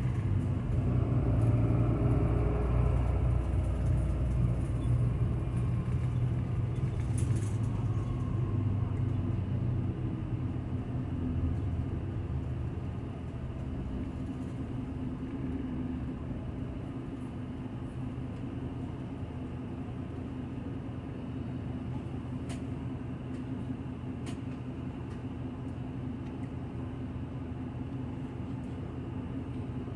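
Engine and running noise of a route bus heard from inside the cabin: a low rumble that dies down over the first dozen seconds and settles into a steady low engine hum, with a couple of faint clicks in the second half.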